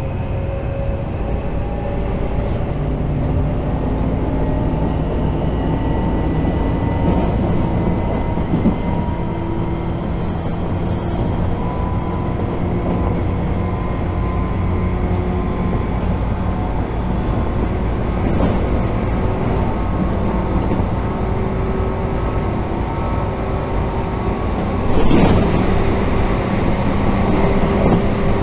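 Tobu 9000 series electric train car running, with the whine of its chopper motor control sounding as steady tones that step up and down in pitch over the running noise. It is the car's summer-only low-speed chopper sound, likened to the Hankyu 2200 series chopper cars and the JR 201 series. A louder rattle of running noise comes in near the end.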